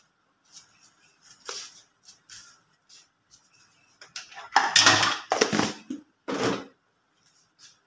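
Sugar scooped from a plastic tub lined with a plastic bag, with soft rustles and small knocks. About halfway through, three or four loud rushing bursts as it is shaken out into a plastic basin of mashed taro.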